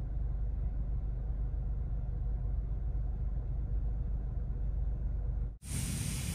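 Low, steady rumble of a car cabin's background noise. About five and a half seconds in it cuts off abruptly to a brighter, even outdoor hiss.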